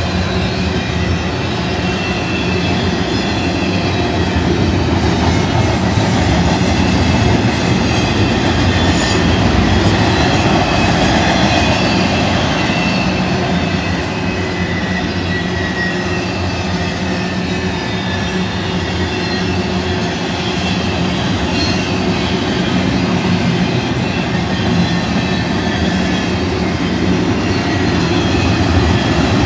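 Double-stack intermodal freight cars rolling past close by: a steady loud rumble of steel wheels on rail, with faint high wheel squeals drifting in and out.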